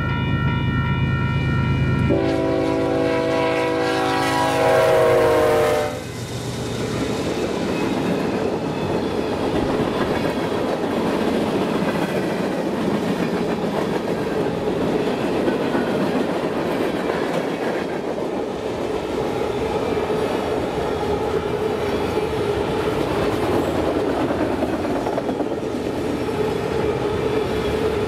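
Freight train passing: the lead GE Evolution Series locomotive blows a long horn chord from about two to six seconds in, its pitch dropping as the locomotive goes by, over the diesel's low rumble. The horn cuts off and the rumble and clickety-clack of the freight cars rolling past follow steadily.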